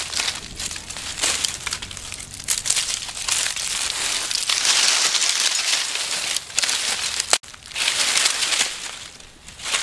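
Dry fallen leaves and twigs crunching and crackling underfoot and in the hands as dry sticks are gathered for firewood from the leaf litter, in irregular surges, with a momentary break about seven seconds in.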